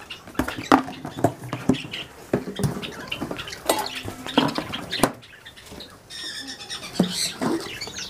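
Plastic feed-container lids and bowls being handled: a run of light clicks, knocks and scrapes, with caged birds squawking and chirping now and then.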